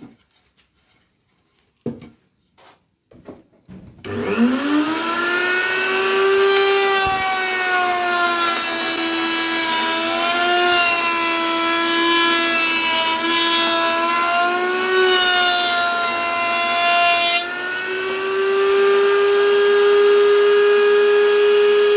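Table-mounted electric wood router switched on about four seconds in, its motor spinning up and then running at a steady high pitch. The pitch sags slightly while a strip of wood is fed past the bit, then rises again near the end as the bit runs free. A few light knocks before it starts.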